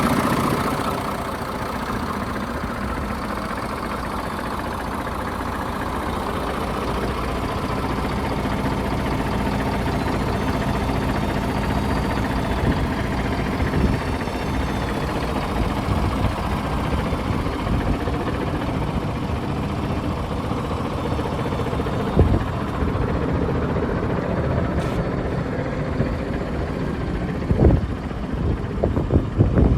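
Iveco Trakker 380 truck's diesel engine idling steadily. A few sharp knocks come through about two-thirds of the way in and again near the end.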